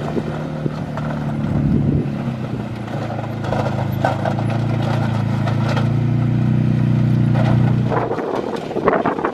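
Polaris utility side-by-side engine running steadily under load as it pushes dirt with a front plow blade and drags a road grader across a dirt track. About eight seconds in the engine tone drops away, leaving a rushing noise of wind and scraped dirt.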